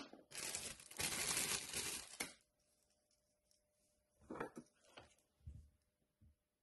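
Workbench handling sounds during soldering work: a sharp click at the start, then about two seconds of crinkling, scraping noise, then a few soft knocks and taps.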